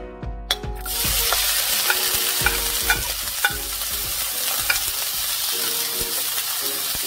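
Chopped onions and yellow bell pepper sizzling in hot olive oil in a stainless steel skillet, the sizzle starting about a second in as they land in the pan. A spatula stirs them, clicking against the pan now and then.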